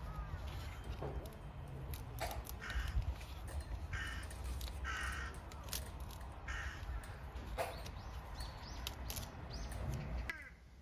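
Crows cawing several times, with a few sharp knocks between the calls.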